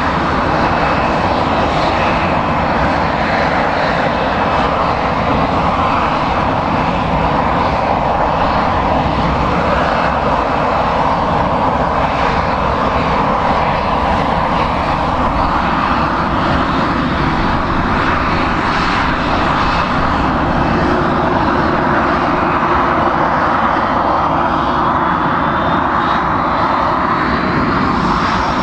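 Boeing 737-800's CFM56-7B jet engines running loud and steady, with a rising whine near the end.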